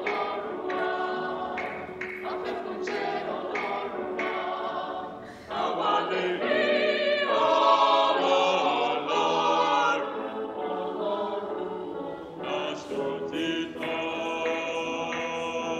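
Mixed choir of men and women singing. The sound dips briefly about five and a half seconds in, then swells to its loudest for a few seconds before easing back.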